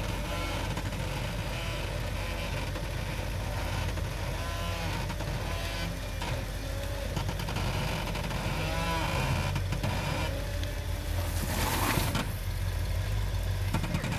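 A 4x4's engine running steadily at low speed during rock crawling, with a couple of short creaks partway through and a brief loud scraping rush near the end.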